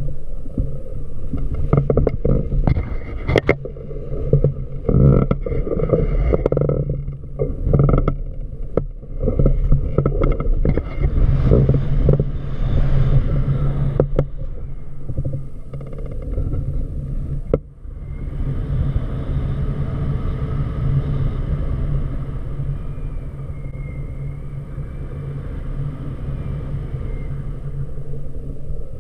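Wind rushing and buffeting over the microphone in flight beneath a paraglider wing, a steady low rumble. Irregular knocks and rustles come through the first half and ease off in the second.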